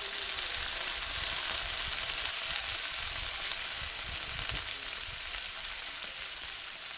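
Sliced onions with ginger, garlic, chillies and curry leaves sizzling steadily as they fry in coconut oil in a pan.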